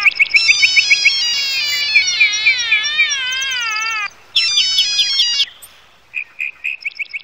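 Mobile phone alarm ringing: an electronic melody of fast, stepping, warbling beeps. It breaks off about four seconds in, starts again briefly, and cuts off about five and a half seconds in as the phone is reached for.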